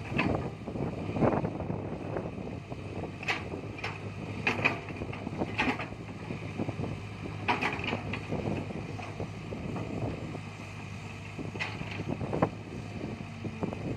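Cat 312D excavator's diesel engine running steadily while the bucket digs through dirt and clods, giving irregular clanks and scraping crunches every second or two.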